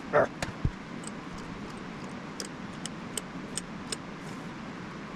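Metal parts of a car door hinge and its spring compression tool being handled: a short scrape and a knock just after the start, then scattered light metallic clicks and taps over a steady shop hum.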